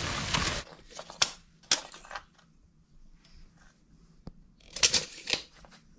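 Tape measure handled against a fiberglass surface: scattered sharp clicks and short scrapes, with a quick cluster of them about five seconds in. A brief rush of noise cuts off about half a second in.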